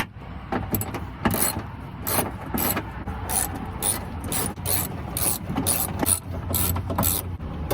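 Hand ratchet wrench clicking as it backs out the window regulator's mounting bolts in a truck door, in quick repeated strokes about three a second.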